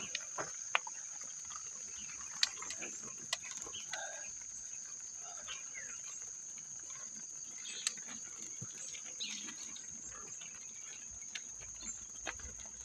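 Insects chirring in a steady, high-pitched drone, with scattered faint clicks and ticks.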